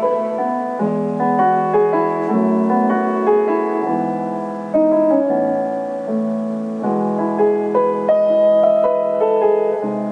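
Background piano music: a melody over held chords.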